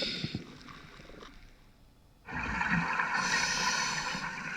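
Underwater reef sound with short low clicks, attributed to a giant pelagic moray. The clicks fade almost to quiet, then a steady hiss starts abruptly a little past halfway.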